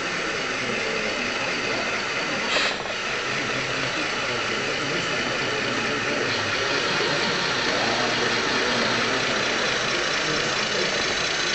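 Radio-controlled scale model car's motor and drivetrain running steadily, close up. There is one sharp knock about two and a half seconds in.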